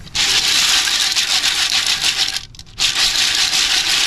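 Bitanga snail shells clattering against each other in a metal pot as they are stirred by hand, a steady rattling that breaks off briefly about halfway through.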